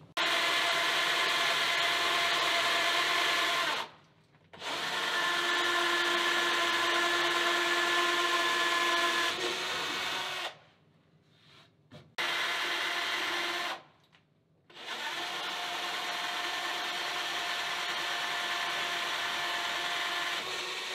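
Black & Decker cordless drill with a 5 mm wood bit boring the truck bolt holes through a glued-laminated wood longboard deck. The motor runs with a steady whine in four bursts, stopping briefly at about 4, 11 and 14 seconds in.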